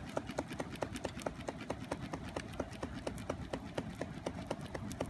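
A hand-held fan flapped quickly at a wood fire, about six quick flaps a second, to blow air into the flames, with the fire crackling.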